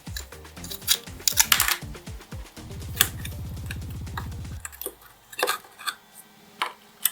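Light clicks and taps of small hard parts of a diecast model car being handled, over background music, with a brief low rattle in the middle.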